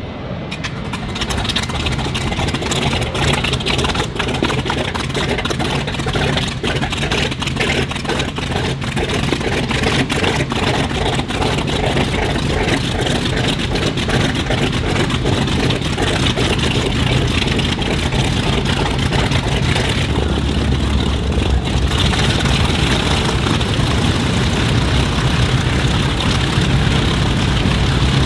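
Radial engines of a North American B-25 Mitchell bomber running on the ground while its engines are being started: uneven and crackly in the first seconds, settling into a steady, louder run with a deeper rumble from about twenty seconds in.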